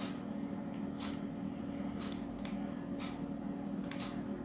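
Computer mouse clicks, about seven short sharp clicks at irregular intervals, over a steady low electrical hum.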